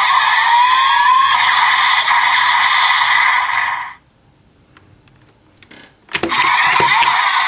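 DX Desire Driver toy belt's small speaker playing electronic music and sound effects with rising swooshes for a special attack, cutting off about four seconds in. After a short pause, a few sharp plastic clicks as the buckle is worked, and the belt's electronic sounds start again.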